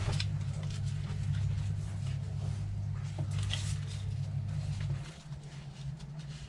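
Light clicks and ticks of small plastic RC car parts and screws being handled during reassembly of a differential. A steady low hum runs under them and stops about five seconds in.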